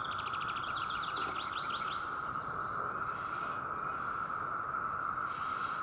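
Steady, high insect drone, with a rapid chirping trill over it for the first two seconds.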